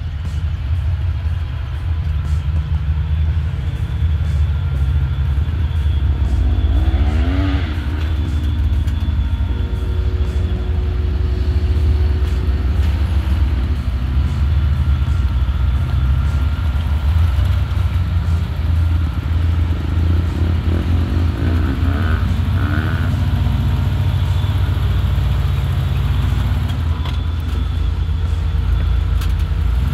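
Off-road 4x4's engine running low and steady while rock crawling. It revs up and falls back briefly about a quarter of the way in and again about two-thirds in.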